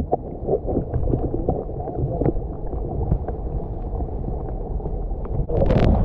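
Muffled, low rush of the waterfall's water mixed with wind buffeting the microphone, with a louder burst of noise near the end.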